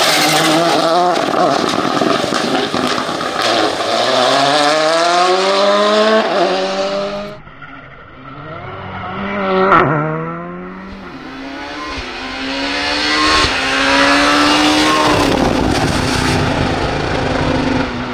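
Rally cars at full throttle on a stage, several passes edited together. The engine pitch climbs and drops back with each upshift. One car passes close and loud about ten seconds in, and another pulls hard through its gears after it.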